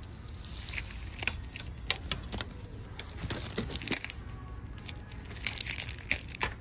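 Aluminium floor-edge trim strips being handled and shifted in a display rack, with scattered light clicks, rattles and rustles as they knock against each other.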